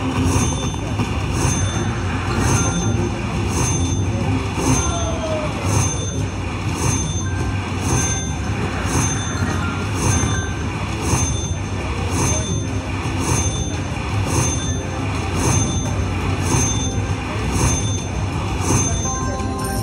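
Video slot machine tallying a bonus payout: a bright electronic chime rings a little under twice a second, once for each credit orb whose value is added to the win meter. A steady low rumble runs underneath.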